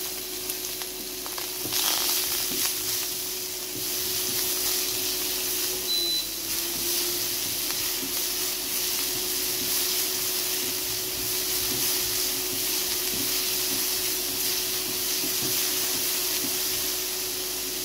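Chopped onion, ginger, green chilli and carrot sizzling in hot sunflower oil with mustard seeds and urad dal in a nonstick kadai, stirred with a wooden spatula. Under it runs a steady hum.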